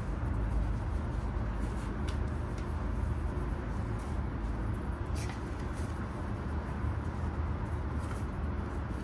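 Steady low rumble of distant city traffic, with a few faint light clicks.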